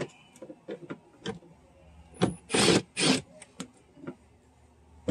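Cordless drill-driver with an 8 mm socket run in two short bursts, loosening a hose-clamp screw on the air intake duct, among light clicks and taps of handling.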